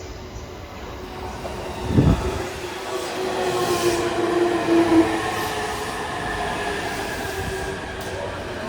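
Electric commuter train running on the rails, getting louder after a low thump about two seconds in, with steady squealing tones from the wheels.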